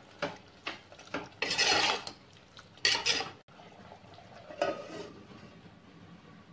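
Metal ladle scraping and knocking against a metal pot as a thick chicken curry is stirred, in a few short strokes. Near the end a metal plate is set down on the pot as a lid.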